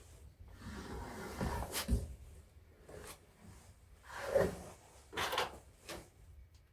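A handful of separate knocks and rubbing sounds, as of objects or metal being handled, with no steady rhythm; the loudest come about two seconds in and about four and a half seconds in.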